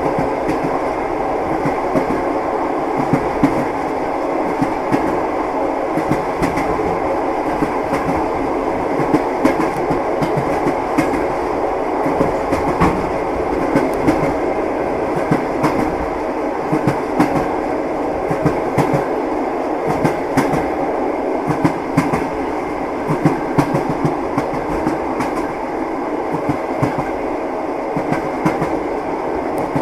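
Train running along the rails: a steady rumble from the wheels with frequent, irregular clacks and knocks as they pass over the rail joints.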